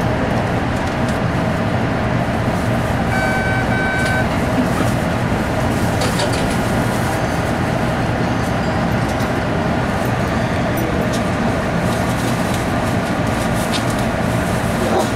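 Steady hum and rumble of an MBTA Red Line 01800-series subway car standing at a platform. Two short, identical electronic beeps sound about three seconds in.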